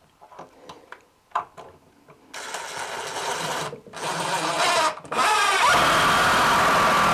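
A few light handling taps, then a power drill runs in short spells, stopping briefly twice, before speeding up with a rising whine and running steadily, driving a screw into the wooden bathtub framing.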